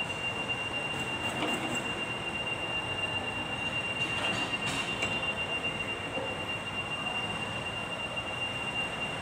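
Steady mechanical hiss with a constant high-pitched whine, and a few faint light clicks about a second in and again around four seconds in.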